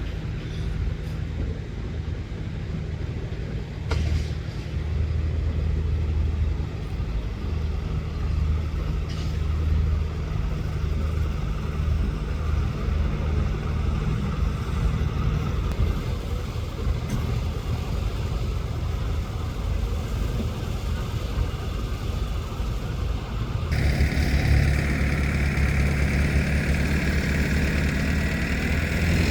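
Heavy engine of construction machinery running steadily with a low hum. About 24 seconds in the sound changes abruptly and gets louder, with a hiss added over the engine.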